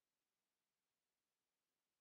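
Near silence: only a faint, even hiss of the recording's noise floor.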